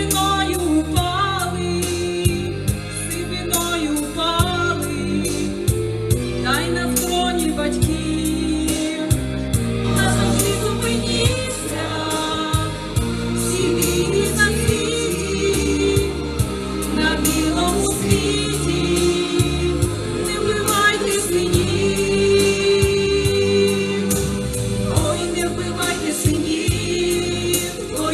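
Slow, mournful Ukrainian song with a steady beat and choir-like vocals, in an instrumental passage between sung verses.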